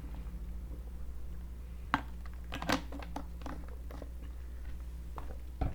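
A few scattered, sharp clicks of a computer mouse and keyboard over a steady low hum.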